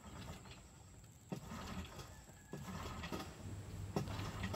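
Pull-starting a Mercury outboard motor: two yanks on the recoil starter cord about a second apart, then a low steady hum.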